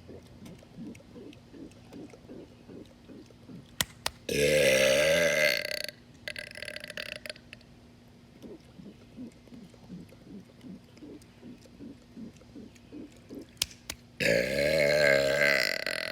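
A man's long, loud burps, two of them, each lasting about a second and a half with a low, wavering pitch. The first comes about four seconds in and the second near the end, each just after a short click.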